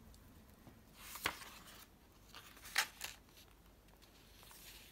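Paper rustling as the thick pages of a handmade paper journal are handled and turned, with two short sharp paper flicks, one just over a second in and one near three seconds in.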